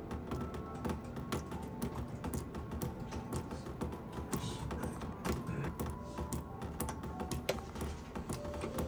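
Computer keyboard typing: irregular sharp key clicks, several a second, over background music with a steady low hum and a few held tones.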